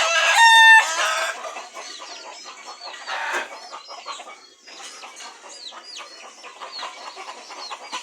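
Chickens going to roost: one loud, strident call from a chicken in the first second, then softer clucking and many short, high, downward-sliding chirps.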